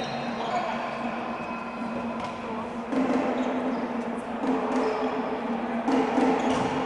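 Steady din of crowd voices in an indoor sports hall, with a few sharp knocks of a volleyball being struck in play.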